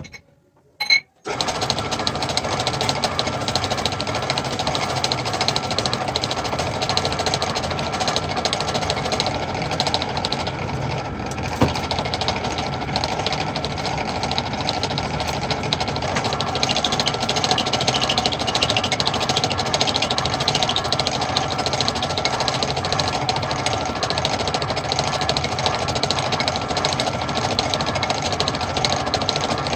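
Metal-turning lathe running steadily with a constant whine and a dense rapid rattle, starting about a second in after a click.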